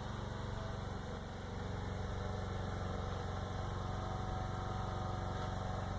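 Steady low mechanical hum of an idling engine, running evenly with a fine rapid pulse.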